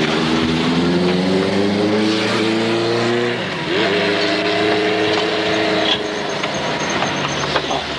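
A vehicle engine accelerating: its pitch climbs steadily, drops with a gear change about three and a half seconds in, then picks up again and holds steady before fading about six seconds in.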